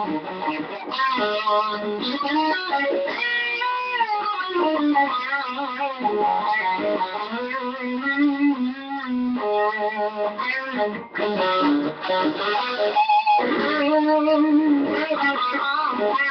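Ibanez RG1527 seven-string electric guitar with Seymour Duncan Full Shred 7 pickups playing a run of single notes, many held with vibrato or bent in pitch, with brief breaks between phrases.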